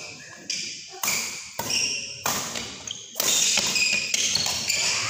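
Badminton doubles rally: rackets striking the shuttlecock in quick succession, roughly one hit every second or less, with shoes squeaking on the wooden court floor.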